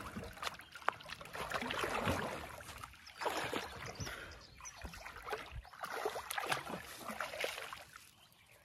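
River water splashing and sloshing around a swimmer who lies on a rubber inner tube and kicks his legs, in uneven surges about once a second.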